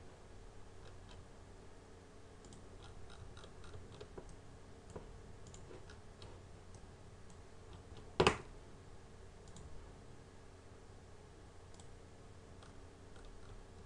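Faint computer mouse clicks and keyboard taps at a desk over a steady low electrical hum, with one much louder sharp click or knock about eight seconds in.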